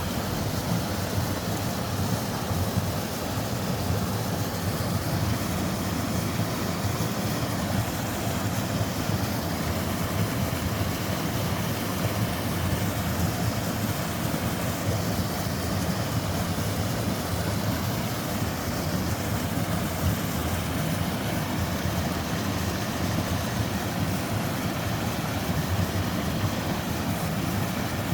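Twin waterfall in a mountain stream: water pouring steadily into the pool below, a constant rushing sound with no breaks.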